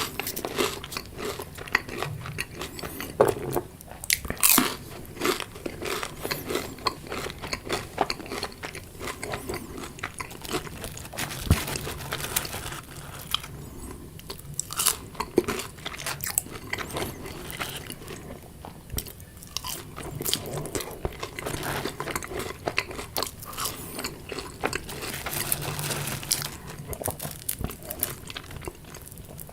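A person biting and chewing crunchy fried food: repeated irregular sharp crunches throughout, with softer chewing between them.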